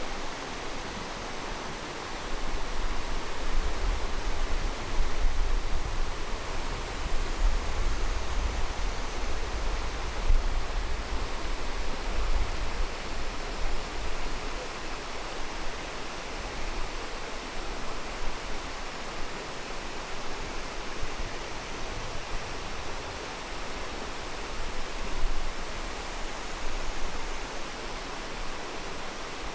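Steady rush of water in a mountain gorge, with a louder low rumble through the first half.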